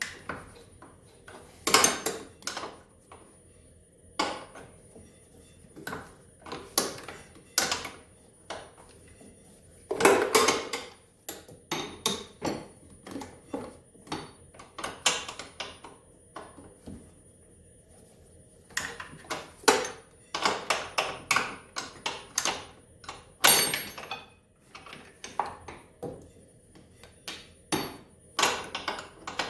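Irregular metallic clinks and clacks of a box-end wrench working bolts on a snowmobile engine, in short clusters of taps with pauses between.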